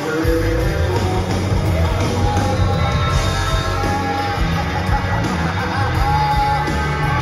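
Live rock band playing loud through a venue PA, heard from in the crowd. Bass and drums come in just after the start, under long held guitar and vocal tones.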